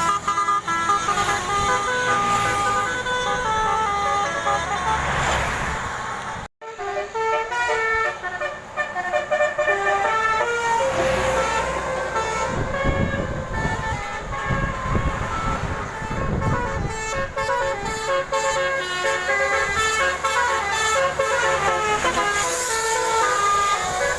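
Basuri 'telolet' multi-tone bus horns playing a stepping tune of short held notes, over the noise of passing buses. The sound drops out for an instant about six and a half seconds in, then the horn tunes go on.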